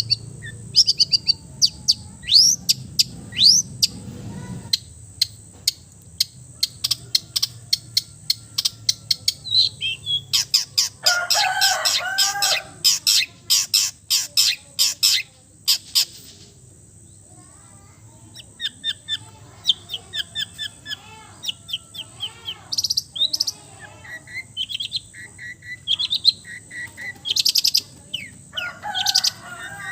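Long-tailed shrike (cendet) singing a busy mimicking song of rapid sharp chirps, quick rising and falling whistles and trills, taken from other songbirds. A fast, louder chattering run comes in the middle. The song breaks off for a moment, then resumes in short chirping phrases.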